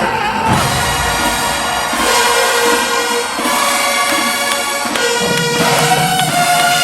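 Marching band playing held chords that change every second or two, with lower horns joining about five seconds in.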